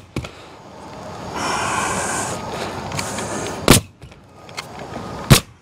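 Pneumatic coil roofing nailer firing twice, the shots about a second and a half apart, driving nails through asphalt shingles. A second-long hiss of noise comes before them.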